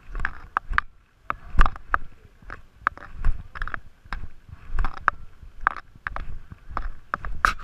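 Footsteps scuffing and crunching on a dry, dusty dirt trail at a walking pace, an irregular run of short steps, two or three a second.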